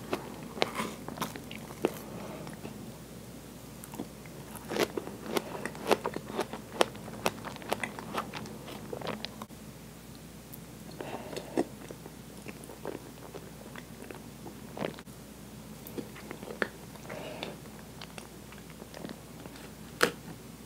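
Close-miked eating sounds: wet chewing and sticky mouth clicks while spooning up whipped cream with strawberries, in an irregular run of sharp clicks. A sharper click near the end as a fork goes into the glass dish of pineapple.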